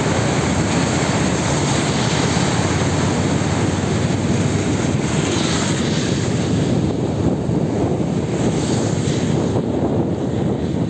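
Steady, loud rushing rumble of wind buffeting a phone microphone in a rainstorm, heaviest in the low range and fluttering constantly.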